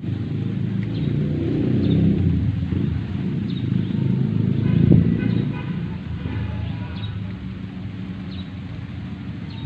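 Low, steady rumble of motor traffic that swells about two seconds and again about five seconds in, with faint short high chirps about once a second.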